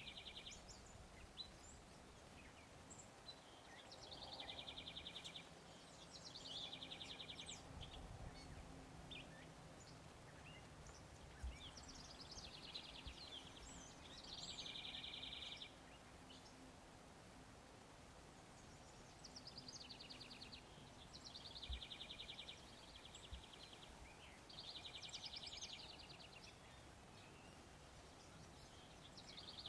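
Faint outdoor birdsong: a songbird repeats a short, fast trill, about a second long, every few seconds, with scattered chirps between. A faint low hum sits underneath in the middle of the stretch.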